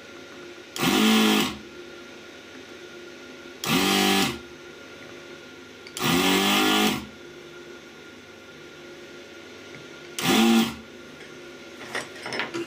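Desoldering station's vacuum pump whirring in four short bursts, each rising then falling in pitch as the motor spins up and stops, sucking the last solder out of the relay through-holes on the circuit board. A few light clicks near the end.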